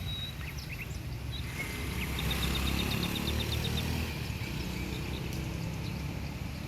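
Outdoor ambience of birds chirping, with a quick run of about ten short chirps a couple of seconds in, over a steady low rumble.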